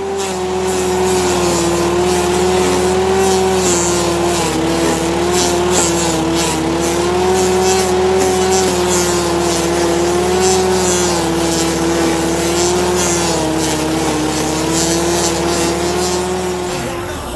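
Bluebird SG13GT stump grinder's 13 hp petrol engine running at full throttle under load, its pitch sagging and recovering a little as the cutting wheel bites into the stump. Over it comes a steady gritty hiss and patter of wood chips and soil thrown from the cutter.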